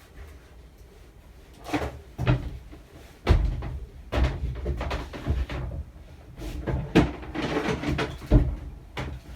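Irregular knocks, thumps and scrapes of tools and fittings being handled in a boat's interior, several sharp bangs among them; no power tool running.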